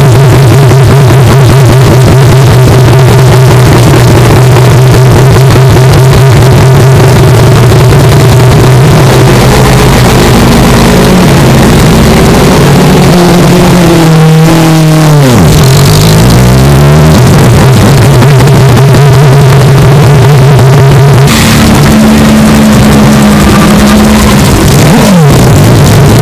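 Mazda 767B four-rotor rotary engine running at a steady idle, with its pitch changing in the middle and again near the end as the throttle is worked. The recording is heavily overdriven.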